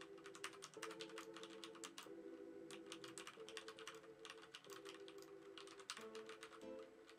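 Faint, rapid typing on a SteelSeries Apex M500 mechanical keyboard with Cherry MX Red linear switches: an uneven stream of key clicks, with quiet background music repeating a short phrase.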